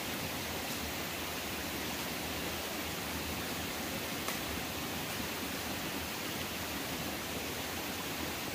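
Steady rushing of running water from a forest stream, with a faint click about four seconds in.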